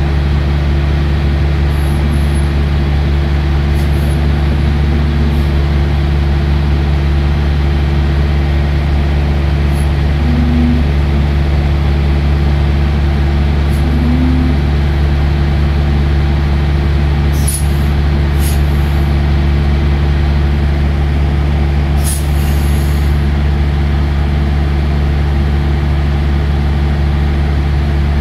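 Semi-truck diesel engine idling with a steady low hum, heard from inside the cab. Near the end come a few brief, faint high hisses.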